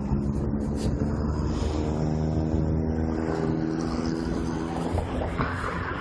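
A vehicle engine running at a steady pitch while driving, over a low rumble of wind and road noise.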